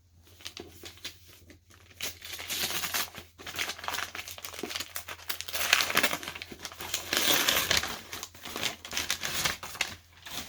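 Wrapping crinkling and rustling in uneven bursts as it is handled and pulled off a book by hand, loudest from about six seconds in.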